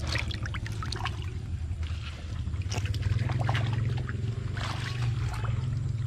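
Shallow muddy water splashing and sloshing in irregular short bursts as hands stir a bowl of water and grope through the flooded mud and weeds, over a steady low hum.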